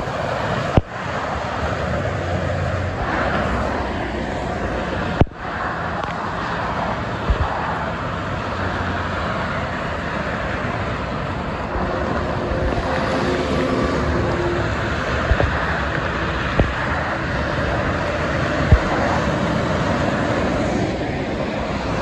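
Steady expressway traffic noise: heavy tractor-trailers and cars passing below, with engine rumble and tyre hiss. A few short bumps stand out.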